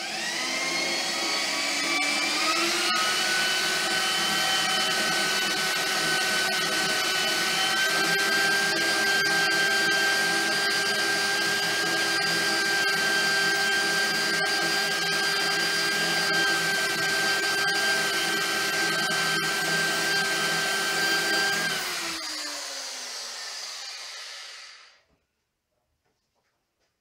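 Handheld corded electric drill spinning up and running steadily while drilling a tap hole into a metal bar, then winding down and stopping about 22 seconds in.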